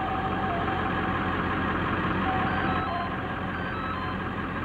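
A vehicle engine running steadily, with faint held tones that step between pitches over it.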